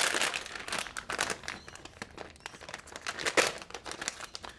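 Red bubble wrap and a metallised static-shielding bag crinkling and rustling as hands unwrap a circuit board: a dense run of crackles, loudest at the start and again a little after three seconds.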